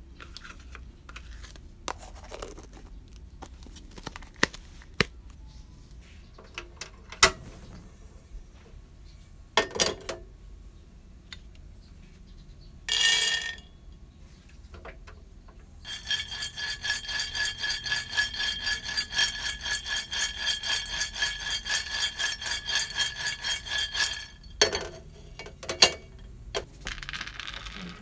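Peanuts dry-roasting in a stainless steel pan: a brief ringing rattle, then about eight seconds of rhythmic scraping and rattling of peanuts against the steel, several strokes a second, with the pan ringing throughout. Scattered clicks and knocks of kitchen utensils come before and after.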